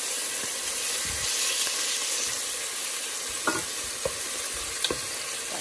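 Raw chicken breast pieces sizzling steadily in hot oil in a stainless steel pot, stirred with a wooden spatula that knocks sharply against the pot a few times in the second half.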